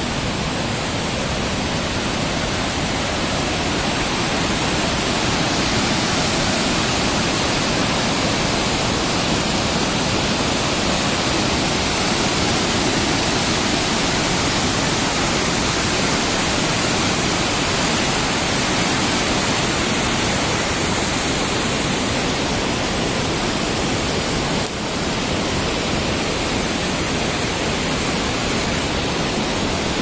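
Helvetesfallet, a large waterfall, rushing: a loud, steady, unbroken roar of falling white water.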